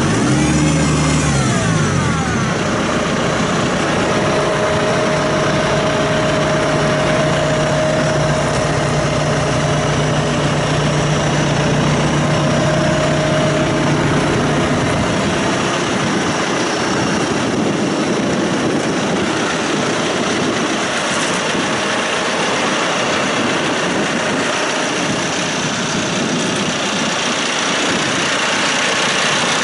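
John Deere 5115M tractor's diesel engine running steadily at idle, with a brief sweep in pitch about a second in; its deep low hum drops away about halfway through.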